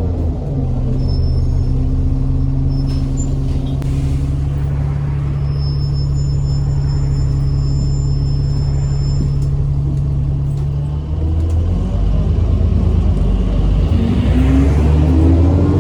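Alexander Dennis Enviro400 double-decker bus heard from on board, its engine running steadily at a low even note, then picking up with rising pitch near the end as the bus pulls away. A thin high whine comes and goes twice in the first part.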